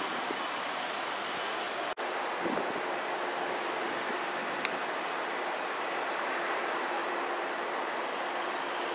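Steady jet-engine noise from a Boeing 747's four engines as the airliner rolls along the runway, heard from a distance, with a momentary drop-out about two seconds in.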